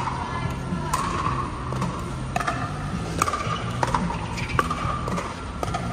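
Pickleball rally: paddles striking a hollow plastic pickleball, about six sharp pops at irregular intervals.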